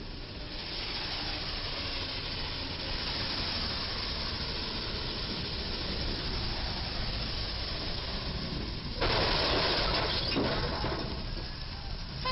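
Traffic on a rain-wet road: a steady hiss of tyres on wet pavement, then a sudden, louder rush of tyre spray about nine seconds in as a vehicle passes close, fading over about two seconds.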